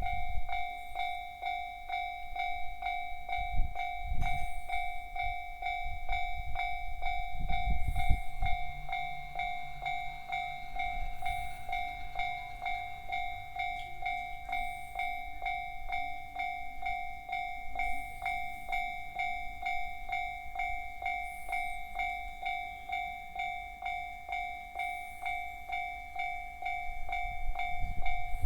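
Japanese railway level-crossing warning signal, the JR standard electronic alarm, ringing as a steady repeating ding, about two strokes a second, with some low rumbling underneath at times.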